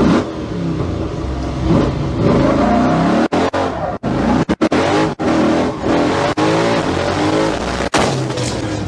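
Late-1970s Ford F-series pickup's engine revving hard up and down during burnout donuts, with tyres screeching on pavement. The sound cuts out abruptly several times partway through. A crash comes near the end.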